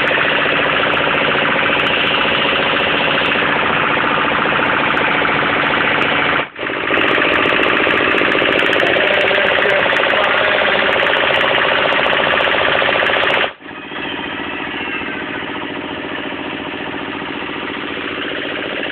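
Engine running steadily under load, driving a compressor. It breaks off sharply twice, about a third and two thirds of the way through, and is somewhat quieter after the second break.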